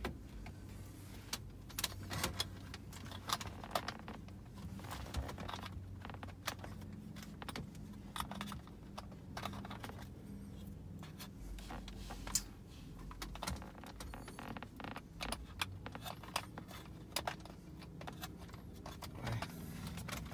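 Ford Focus ST centre dashboard trim bezel being handled and pressed into place, plastic against plastic, giving scattered clicks and light knocks over a low steady hum.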